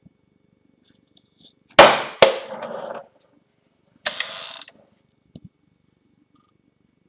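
Sharp knocks and clatter of hard objects being handled and set down: two knocks in quick succession with a short rattling decay, a third knock about two seconds later, then a small click.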